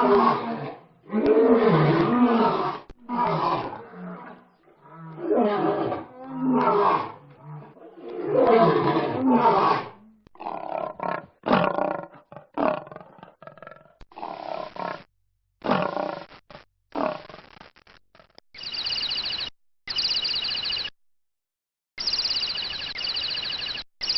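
Lion roaring in a series of long, loud calls, then a run of shorter, quieter lioness growls. In the last several seconds a bird gives a long high trill in several bursts with short gaps.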